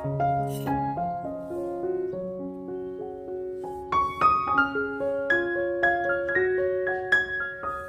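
Background piano music: a slow melody of held notes, growing brighter with sharper note attacks about four seconds in.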